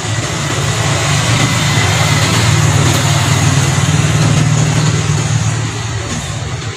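A motor vehicle passes by with a low engine rumble and road noise. It swells in loudness over the first few seconds, then fades away.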